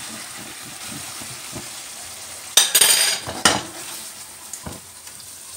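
Sauce-coated eggplant and potato sizzling in a nonstick frying pan, with a loud spell of a metal spoon scraping and clattering against the pan about halfway through as the finished stir-fry is worked loose. Quieter sizzling follows.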